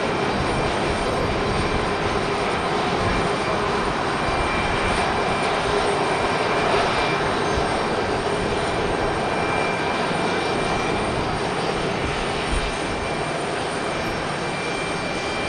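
Boeing 737-500's CFM56-3 turbofan engines running, a steady loud roar with a faint high whine coming and going.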